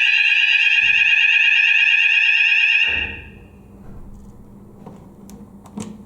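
Fire alarm sounding a loud, steady multi-pitched tone during a system test, cutting off suddenly about three seconds in. Then room noise with a couple of faint clicks.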